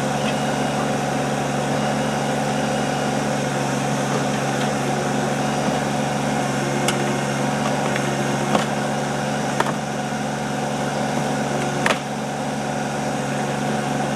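Compact Kubota tractor-backhoe's diesel engine running steadily while the bucket works against wooden swing-set timbers. Three short, sharp knocks and cracks of wood in the second half, the loudest near the end.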